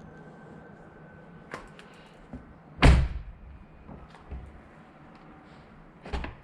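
A Mercedes-Benz W222 S-Class car door shutting with one heavy thud about three seconds in. Lighter clicks and knocks of the door and latch come before and after it.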